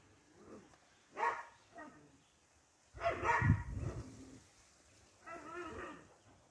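Dog barking in separate short bursts: one about a second in, a louder run of barks around three seconds in, and another wavering burst near the end.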